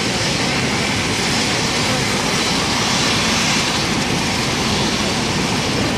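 Military helicopters' turboshaft engines running steadily on the ground ahead of take-off, a loud, even, unbroken noise.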